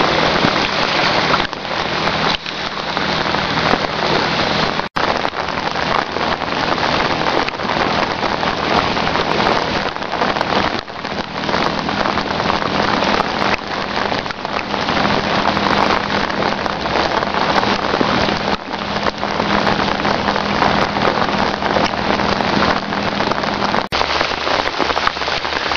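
Heavy rain falling, with many close drops striking near the microphone as small sharp ticks. A faint steady low hum runs under it and stops about two seconds before the end.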